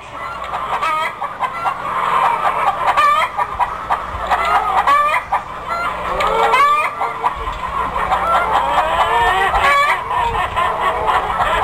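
A loud, continuous chatter of many birds calling at once, short squawking and clucking calls overlapping without a break.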